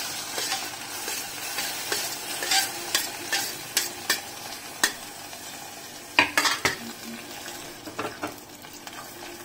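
Aloe vera gel frying in amla oil in a steel kadai: a steady sizzle under repeated sharp clinks and scrapes of a knife and spoon against steel, loudest about six seconds in.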